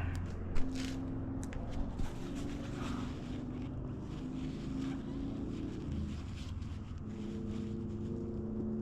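A vehicle engine running steadily, a low hum whose pitch steps up about six seconds in, with a few sharp clicks in the first two seconds.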